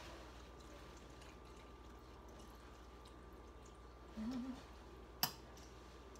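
Quiet kitchen with a steady low hum and faint light sounds as something is tipped into a slow cooker. A short low wavering sound comes a little past four seconds in, and one sharp click follows about a second later.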